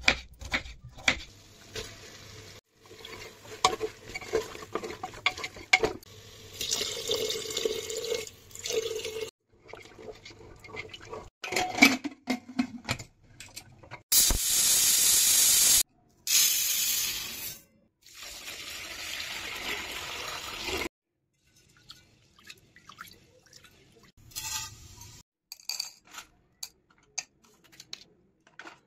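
Knife tapping through a tomato on a wooden chopping board. About halfway through, a stovetop pressure cooker's weight valve lets out steam in a loud, steady hiss that lasts several seconds. Soft scattered clicks follow.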